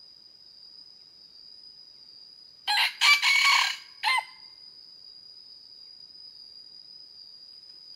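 Red junglefowl rooster giving one short crow about three seconds in, broken into a few clipped parts, over a steady high-pitched insect drone.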